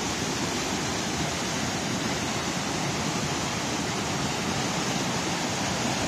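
Overflow from a full reservoir cascading over rock ledges in small waterfalls: a steady, even rush of water flowing with great force.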